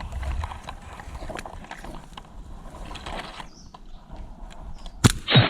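Footsteps and rustling of gear and brush as an airsoft player moves, with scattered small clicks. About five seconds in comes a sharp crack, followed by a brief loud burst that drops in pitch.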